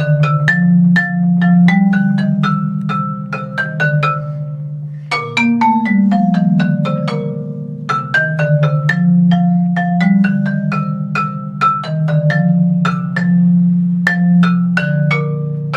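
Marimba played with mallets: a quick run of struck notes in two phrases, with a short break about five seconds in, the low notes ringing on beneath the higher ones.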